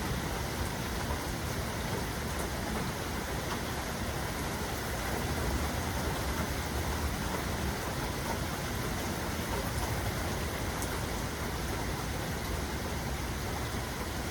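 Steady rain falling: an even, unbroken hiss of rain with a low rumble underneath.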